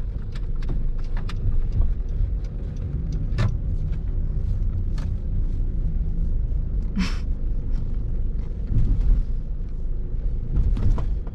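Car being driven, heard from inside the cabin: a steady low rumble of engine and tyres, with scattered light clicks and knocks and a short hiss about seven seconds in.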